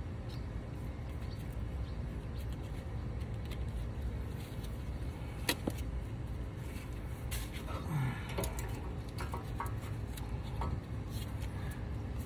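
A few light metallic clicks and clinks as brake pads and caliper hardware are handled, one about five and a half seconds in and a short cluster about two and a half seconds later, over a steady low background rumble.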